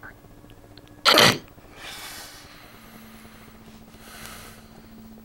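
A man snoring: one loud snort about a second in, then two softer, breathy snores.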